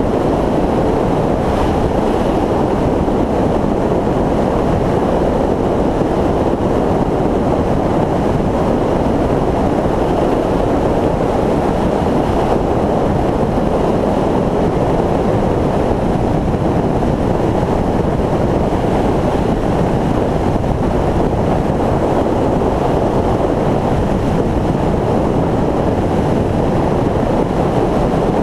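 Steady rush of wind and road noise from a motorcycle cruising at road speed, heard through a microphone on a camera mounted to the bike.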